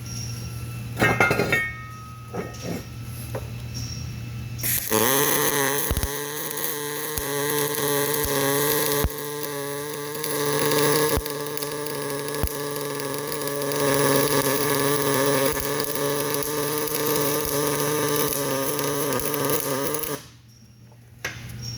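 A welding arc buzzing and crackling steadily for about fifteen seconds, starting about five seconds in and cutting off near the end. It is preceded by a few metallic clinks.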